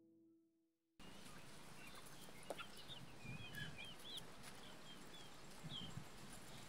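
Chickens clucking softly, with short high chirps and peeps over a steady background hiss. A fading bell-like musical tone ends about a second in, where the farm sound cuts in abruptly.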